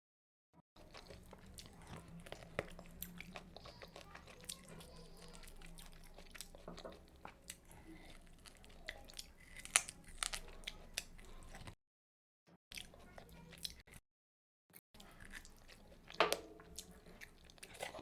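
Close-miked chewing and biting of food, with sharp wet clicks and a few crunchy bites, broken twice by short dead-silent gaps.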